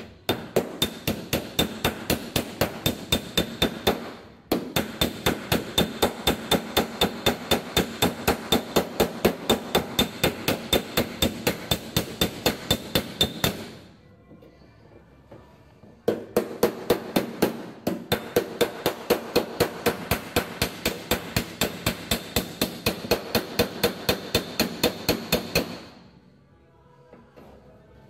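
Body hammer planishing the welded steel quarter panel of a Holden Torana: rapid, even metallic strikes at about four a second with a high ring, in two long runs with a pause of about two seconds between them. The hammering stretches back out the heat-affected zone around the weld, which shrank as it cooled.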